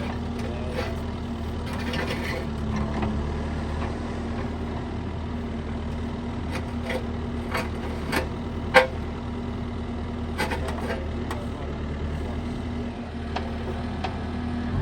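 Engine idling steadily, with scattered light clicks and knocks over it and one sharper knock about halfway through.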